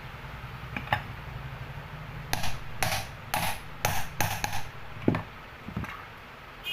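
Sharp knocks on ceiling fan body parts during assembly: about six quick strikes a little over two seconds in, then two softer knocks.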